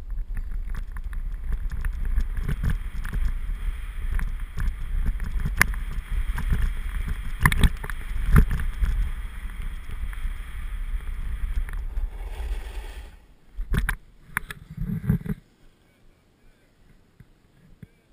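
Wind rumbling on an action camera's microphone and the scrape and chatter of snow under the rider sliding down a groomed run, with many small clicks. Near the end the rumble drops away, a few knocks follow, and then it goes nearly quiet as the rider stops.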